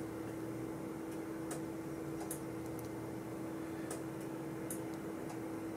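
Steady electrical hum with faint, sharp high ticks repeating evenly about every 0.8 seconds.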